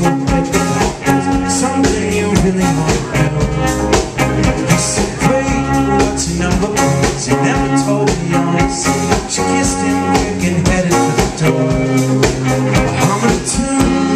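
Live band playing a song with a steady drum beat: electric guitars, bass, bowed cello, drum kit and keyboard.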